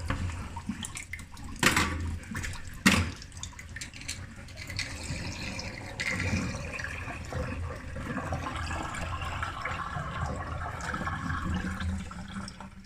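Water running into a sink and draining, with two sharp knocks about a second apart near the start; the water stops near the end.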